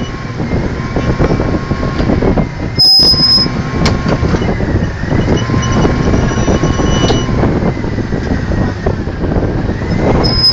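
Drilling rig machinery running loud and steady, with a whining tone that slowly dips and rises again several times. A brief high squeal comes about three seconds in and again near the end.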